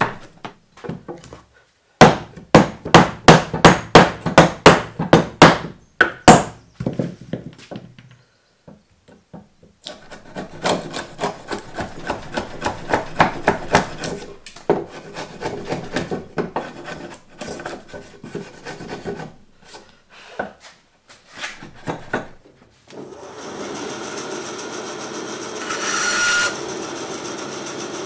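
A mallet drives a chisel into timber to chop a joint: runs of sharp, repeated knocks, about three a second, with short pauses between them. Near the end a bandsaw runs steadily.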